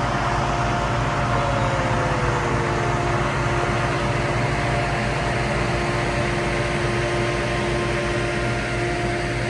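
Farm machinery running steadily and loudly: an even rushing drone with a steady hum and a fast low pulsing underneath, and a faint tone that slides down over the first few seconds.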